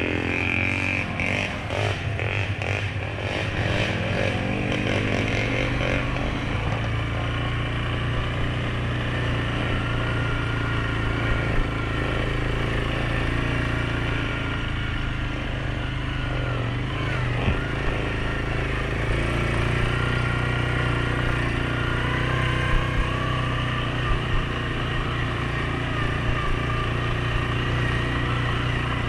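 ATV engine, a Suzuki KingQuad 750's single-cylinder four-stroke, running steadily while riding. Its pitch drops in the first few seconds, and a few short knocks come through over the engine.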